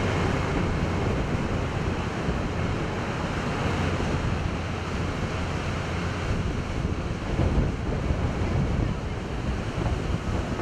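Ocean surf and wind on the microphone, over a low, steady rumble from a tracked loader's diesel engine as it pushes and dumps sand into a berm.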